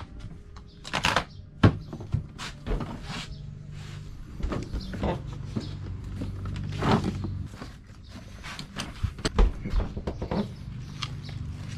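Hand tools clinking and rustling while someone rummages through a soft tool bag and handles a plastic tool case: a run of scattered knocks and clatters, the sharpest about a second and a half in and again near seven seconds.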